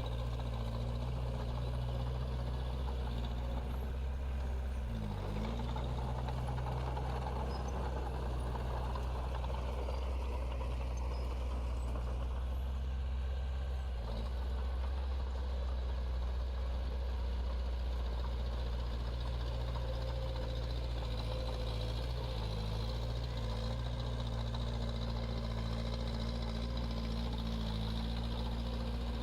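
Diesel engine of heavy earthmoving equipment running steadily under work, its pitch dipping and coming back up briefly about five seconds in.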